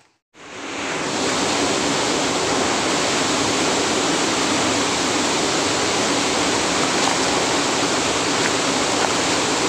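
Water rushing over a small waterfall, a loud, steady rush that sets in within the first second and holds even throughout.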